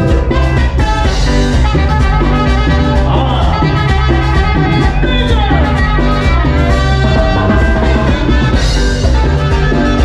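Live cumbia band playing loudly, with drums and a heavy bass, recorded on a camera's own microphone.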